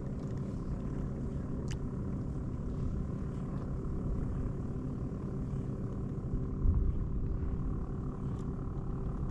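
A motor running steadily at low pitch, a continuous rumble with a faint even hum and a small bump about two thirds of the way through.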